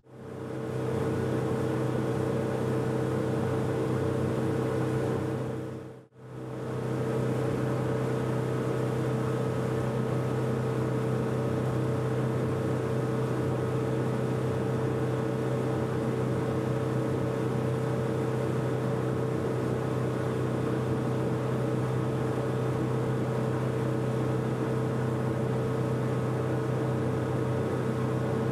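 Cabin cruiser's engine running at a steady speed, heard on board as an even drone with a constant low hum. The sound drops out briefly about six seconds in.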